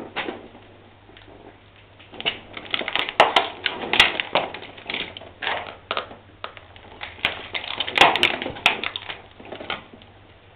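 Broken plastic casings cracking and crunching under a motorcycle tyre rolling over them: irregular sharp cracks in clusters, with a lull about a second in and another past the middle.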